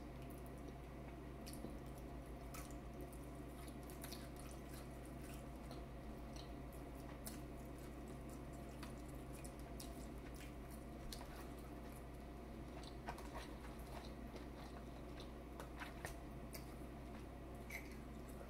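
A person chewing a buttery seafood boil close to the microphone: soft, wet, squishy mouth sounds and small scattered clicks over a low steady hum.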